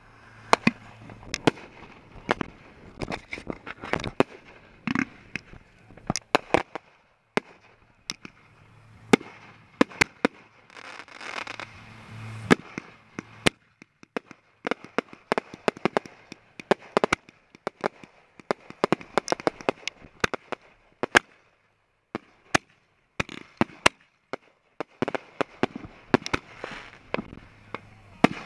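Fireworks going off: many sharp bangs and pops at irregular intervals, some loud, with denser stretches of crackle around ten seconds in and again near the end.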